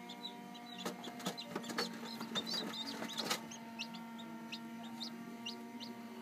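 Chicks peeping in short, high chirps over the steady hum of an incubator. A flurry of sharp clicks and knocks, the loudest sounds, comes between about one and three seconds in.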